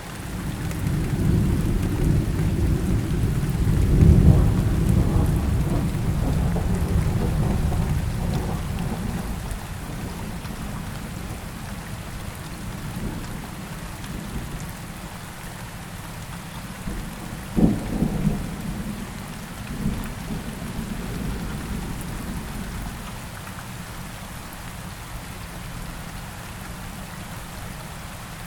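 Steady rain falling, with thunder: a long low roll that builds in the first few seconds and dies away, then a sharper clap about two-thirds of the way through with a short rumble after it.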